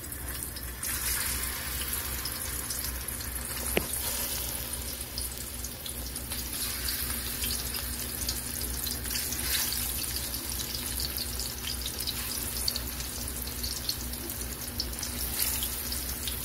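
Ripe plantain slices frying in hot vegetable oil: a steady crackling sizzle, with a sharp click about four seconds in.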